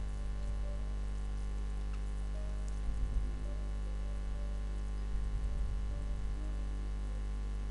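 Steady electrical hum and background noise from the recording microphone, made of many fixed tones and heaviest in the low end, with a few soft low bumps about three seconds in and again around five to six seconds.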